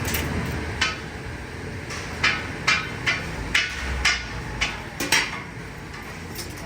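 Sharp knocks and clanks of cooking utensils on metal, about ten of them in an uneven run, most of them half a second or so apart, over a steady background hum.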